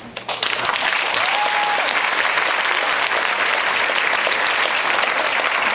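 Audience applauding. A few scattered claps give way about half a second in to full, steady clapping from the whole room.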